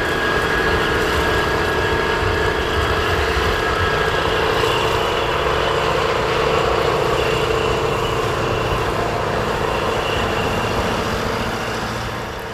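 John Deere 8850's 15.6-litre V8 diesel engine running steadily, a deep rumble with a steady drone over it, easing slightly near the end.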